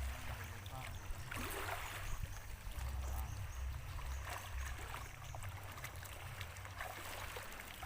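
Moving water lapping and splashing, with wind rumbling on the microphone in gusts.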